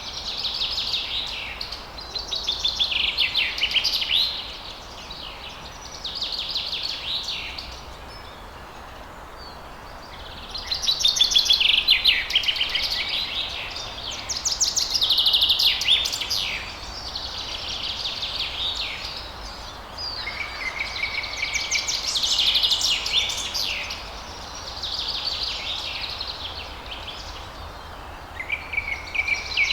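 A songbird singing about nine fast, trilling high-pitched phrases, each two to three seconds long with short pauses between, over the steady rush of falling water.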